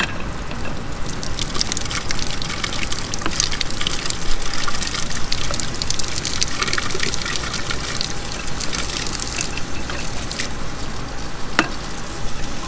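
Pool water gushing steadily out of the above-ground pool's wall return fitting while the valve is swapped, with scattered clicks and knocks from the plastic fittings being handled.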